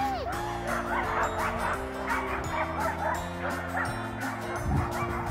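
A pack of Alaskan husky sled dogs yipping, whining and barking together in many overlapping short calls, over background music with held notes.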